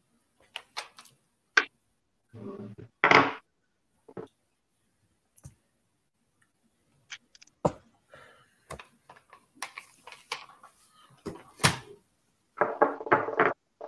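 Irregular clicks, taps and knocks of an object being handled close to a microphone, with two louder muffled thumps, one about three seconds in and one near the end.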